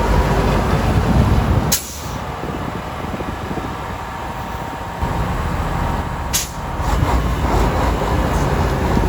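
Heavy snow-removal machinery engines running with a steady low rumble. The level drops sharply about two seconds in and rises again about five seconds in, and there is a sharp click about six seconds in.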